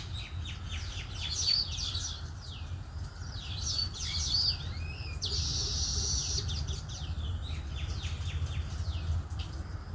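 A flock of baya weavers chattering: many quick, overlapping downward chirps, with one buzzy wheeze lasting about a second midway. A steady low rumble runs underneath.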